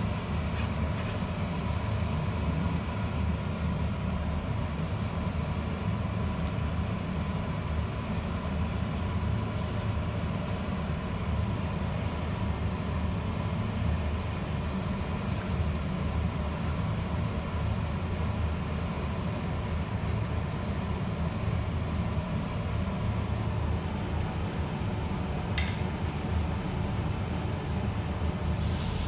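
Barley water at a rolling boil in a stainless steel pot on an electric hob: a steady low bubbling rumble with a faint steady hum, and a couple of light clicks near the end.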